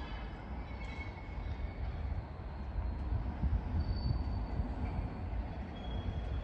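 Diesel rail maintenance vehicle running on the track a short way off, a steady low rumble.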